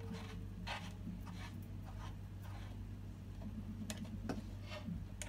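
Irregular small metallic clicks and scrapes of a hand tool working a bolt under a folding desk's frame, over a steady low hum.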